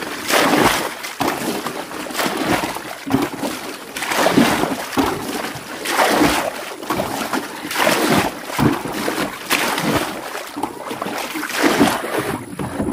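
Water splashing and sloshing around a small boat, in repeated surges about once a second.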